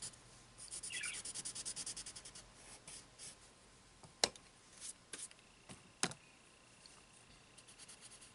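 A colourless blender pencil scratching over coloured pencil on paper in quick, fine back-and-forth strokes as it blends the colours together. The strokes thin out after a couple of seconds, and there are two sharp clicks about four and six seconds in.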